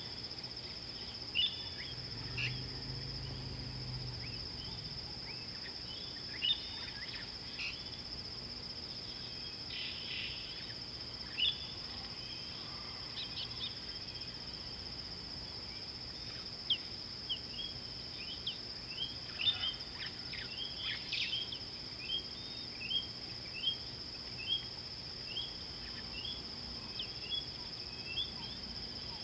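Steady, high-pitched insect drone with many short bird chirps and calls over it; in the second half one bird repeats a short call at an even pace, a little more than once a second.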